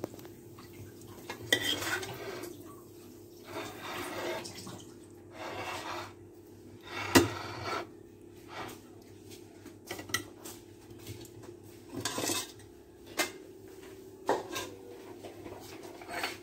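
Spoon scraping and clinking against dishes as thick onion sauce is spooned onto a serving platter: a string of short scrapes with several sharp clinks, the loudest about seven seconds in.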